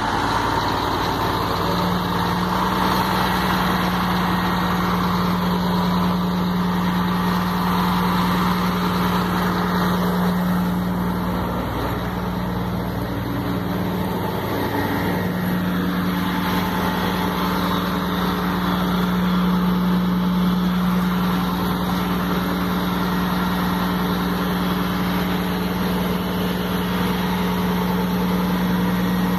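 Scania 114 truck's six-cylinder diesel engine, just started, settling into a steady idle during the first second or so. Its low hum wavers briefly a little under halfway through, then holds steady again.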